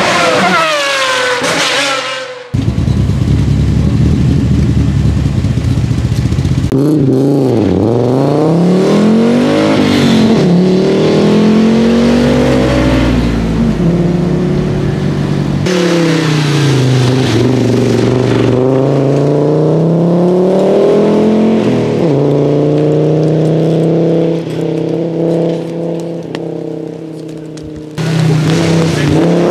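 A 1988 Audi 90 Quattro Group A rally car's naturally aspirated 2.3-litre straight-five engine, revved hard along a stage. Its pitch climbs under acceleration and falls away at each gear change or lift, over and over. Before that comes a few seconds of low, steady running.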